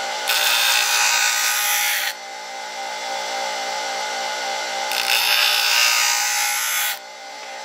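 DeWalt bench grinder running steadily while the rounded steel spine of a Mora Companion knife is pressed lightly to the wheel twice, each pass a loud grinding noise of about two seconds that throws sparks. The spine is being ground flat to a square 90-degree edge for striking a ferro rod.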